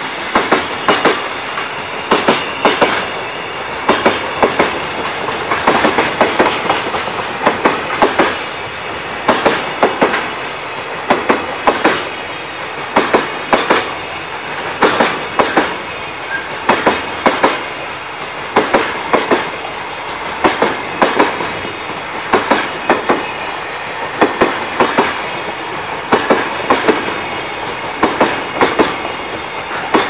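Freight train wagons rolling past: steel wheels clattering over the rail joints in clusters of sharp clacks about once a second, over a steady rolling rumble.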